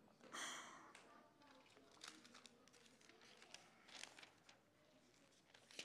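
Faint rustling and soft ticks of thin Bible pages being turned, picked up through a handheld microphone, with a short soft rush about half a second in.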